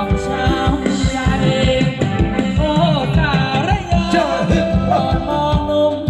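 Thai ramwong dance music from a band: a steady drum beat under a sung melody that bends up and down in pitch.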